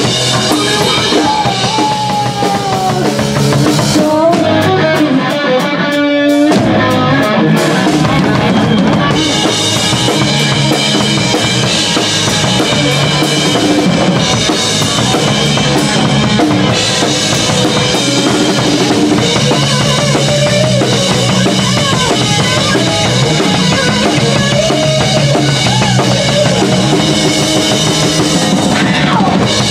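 Live punk rock band playing: a pounding drum kit with bass drum and snare, and electric guitar.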